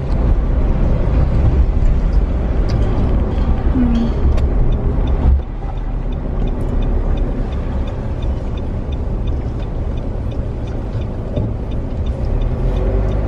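Car cabin noise while driving: a steady low road-and-engine rumble. About five seconds in the level drops suddenly and the rumble goes on a little quieter, with faint regular ticks over it.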